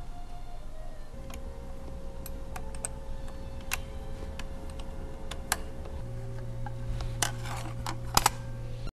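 Scattered light clicks and ticks of hand tools on the metal screws and cover of a Brother KE-430C industrial sewing machine as the X stepper motor cover is unscrewed, with a quick cluster of sharper clicks near the end. A steady faint hum runs underneath from about a second in, joined by a lower hum about six seconds in.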